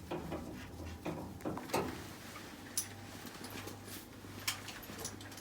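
Scattered light clicks and knocks of parts and tools being handled during range hood fan installation work, over a faint steady low hum.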